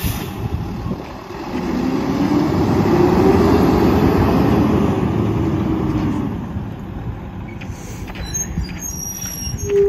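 Peterbilt garbage truck's diesel engine revving up as the truck pulls away from a stop, its pitch climbing and then holding, then fading as the truck moves off down the street. A short hiss comes right at the start.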